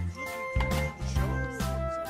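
Light cartoon background music with a steady beat of about two beats a second over a bass line.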